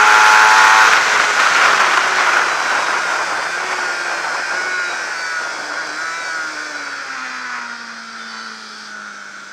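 Onboard sound of a Suzuki GSX-R600 supersport's four-cylinder engine with wind rush at racing speed. The engine note is high and loud for about the first second, then falls steadily in pitch and loudness as the bike slows from the straight and leans into a corner.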